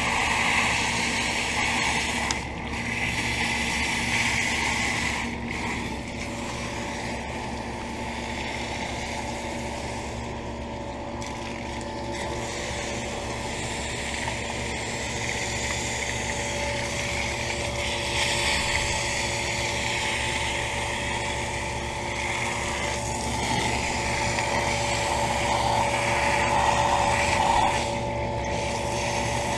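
York central air conditioner's outdoor condenser unit running with a steady hum, its compressor and fan tones holding constant. A hiss rises and falls over it.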